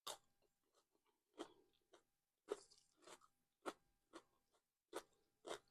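Crunchy bites and chewing of a Southwest salad with salmon: about nine separate crunches, roughly one every half second to second.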